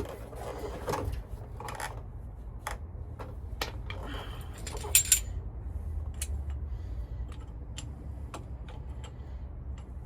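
Light metallic clicks and clinks of hand tools being handled on a vehicle driveline, irregular and scattered, with one louder double clank about five seconds in, over a low steady hum.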